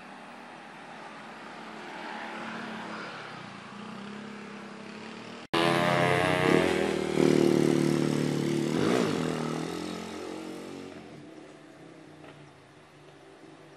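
Motor vehicles passing on a steep mountain road: motorcycle and bus engines running. About five seconds in, the sound breaks off abruptly and gives way to a much louder engine drone with a clear pitch, which fades away over the last few seconds.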